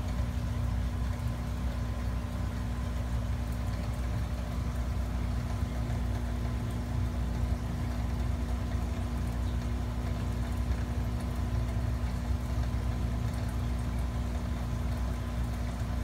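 Aquarium pump humming steadily, a constant low drone with one clear steady tone in it.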